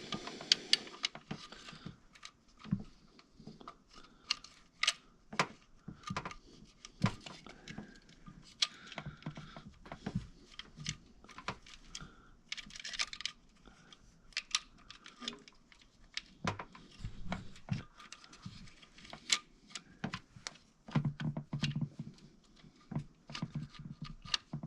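Irregular light clicks and clinks of a timing chain and its guide being handled and worked down into a 2.4 L engine's timing area by hand.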